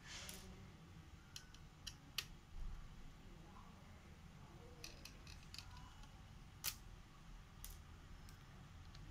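Sparse small clicks and taps of a screwdriver and small parts against an opened laptop's metal chassis, with a short rustle at the start and a sharper click about two-thirds of the way through.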